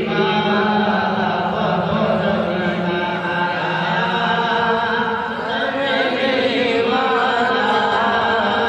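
A man singing an Urdu naat into a microphone, in long held lines that bend and waver in pitch, with no pauses.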